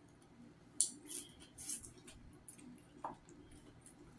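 Faint eating sounds of crispy deep-fried bluegill being chewed: a few short, soft crunches and mouth smacks.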